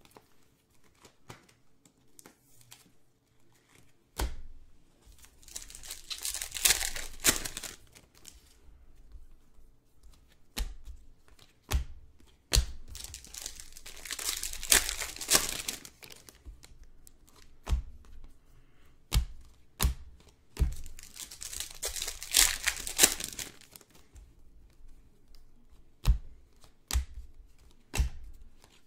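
Trading-card packs being torn open: the foil pack wrappers tear and crinkle in three spells of a few seconds each. Sharp single knocks fall in between.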